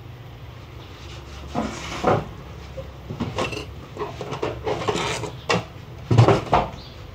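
Metal hand tools clinking and clattering as they are rummaged through and picked out of a tool tray, with a few sharper knocks, the loudest about six seconds in.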